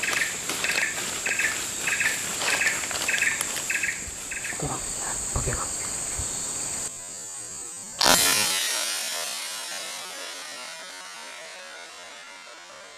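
Forest insects droning steadily, with a chirp repeating about three times a second and rustling in the undergrowth. About eight seconds in there is a sudden loud bang that fades slowly over several seconds.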